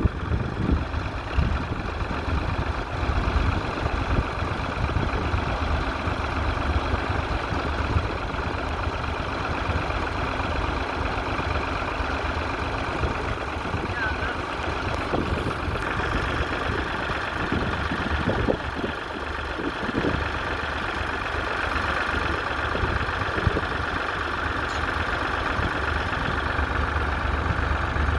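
Fordson Model N tractor's four-cylinder engine running steadily with a low rumble.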